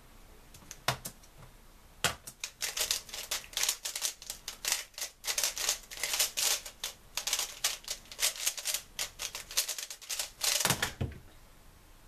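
3x3 Rubik's cube being turned at speed in a speedsolve: a dense, fast run of plastic clacks from the cube's layers. It starts about two seconds in and stops about a second before the end.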